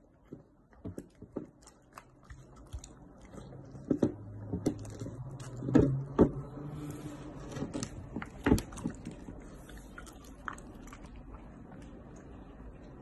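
A Doberman biting and chewing chunks of raw meat, with irregular wet smacks and crunches, loudest in the middle. A low hum runs underneath for a few seconds in the middle.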